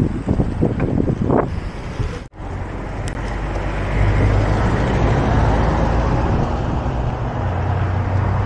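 Wind buffeting the microphone of a moving bicycle, cut off abruptly about two seconds in. Then the steady hum of a car's engine and tyres grows louder from about four seconds in as the car comes up from behind.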